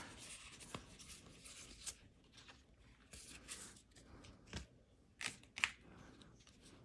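Magic: The Gathering cards being set down and slid around on a playmat by hand: faint, scattered rustles and soft ticks.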